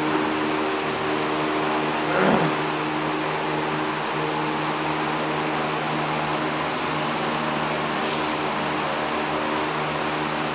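A machine running steadily: an even hum with a hiss over it.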